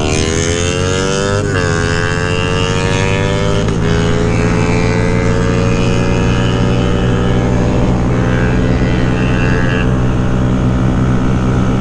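Honda Grom's single-cylinder engine pulling hard through the gears, heard from on the bike. The pitch climbs, drops with an upshift about a second and a half in and again near four seconds, then rises slowly and steadily as the bike gathers speed.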